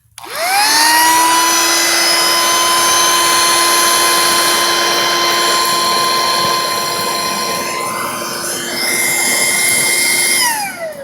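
Small electric air-mattress pump, used as a forge blower, switched on: its motor whines up to speed, runs steadily with a rush of air, then is switched off about ten and a half seconds in, its whine falling as it spins down.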